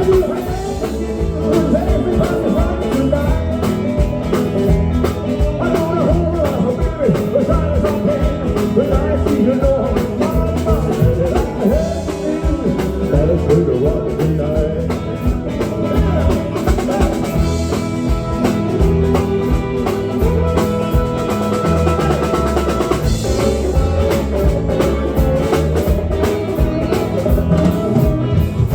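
Live rock and roll band playing an instrumental break: a melodic lead line over a steady drum kit and bass, with no singing.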